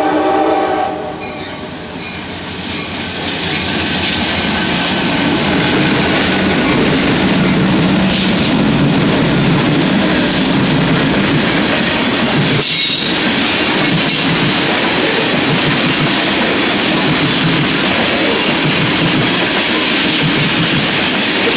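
Freight train horn cutting off about a second in, then a CSX freight led by an EMD SD40-2 diesel locomotive with GE ES44DCs passing close by. After the locomotives, the steady rumble and clickety-clack of freight and tank cars rolling past at speed, with a brief sharp clank and high wheel squeal about halfway through.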